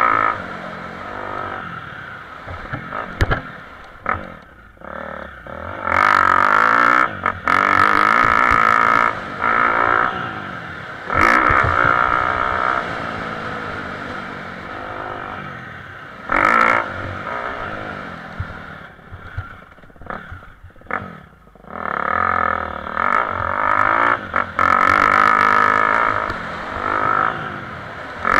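Motocross bike engine heard from a camera on the bike, revving in repeated bursts as the throttle opens and closes, its pitch rising and falling, with a long stretch at high revs near the end. A few short knocks come from the bike hitting bumps in the dirt track.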